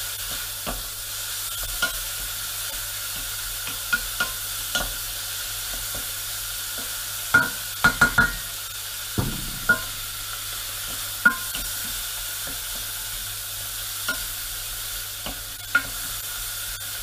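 Diced smoked pork belly sizzling as it fries in a stainless steel pot, rendering its fat, while a wooden spoon stirs it and knocks against the pot every second or two, with a cluster of louder knocks around the middle.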